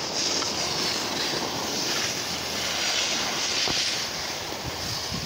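Skis sliding and scraping over packed snow on a descent: a steady hiss.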